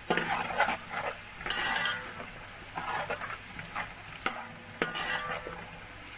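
Hot cooking oil sizzling around browned onions in a metal pot, the frying flaring louder for a moment about a second and a half in, as white cumin seeds go in. A metal spatula stirs through it with a few sharp clicks against the pot.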